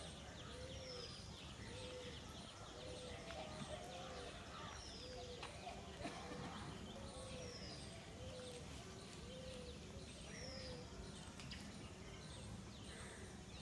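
Birds calling faintly over steady outdoor background noise: a low hooting note repeated about once a second, and a high descending whistle every few seconds.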